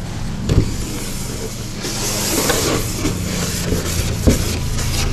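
Whiteboard eraser rubbing across a whiteboard, starting about two seconds in, with two short knocks against the board, over a steady low hum.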